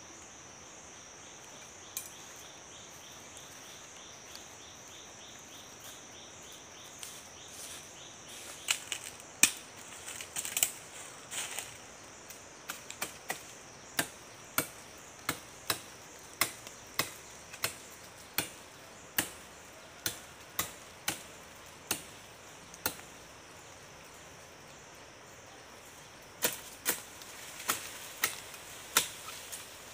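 Blade chopping at palm stalks: a series of sharp chops, about one or two a second, beginning about a third of the way in, pausing briefly, then resuming near the end. A steady high insect drone runs underneath.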